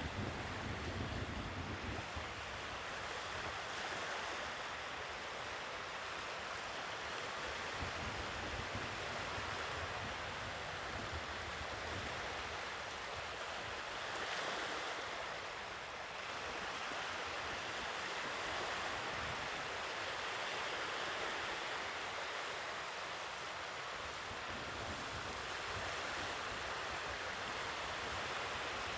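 Sea waves washing on the shore: a steady rush of surf that swells and eases every several seconds.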